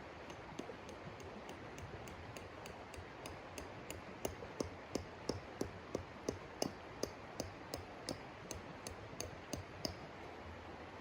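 A steady, even run of sharp ticks or taps, about two and a half a second, growing louder partway in and then fading near the end, over a constant hiss.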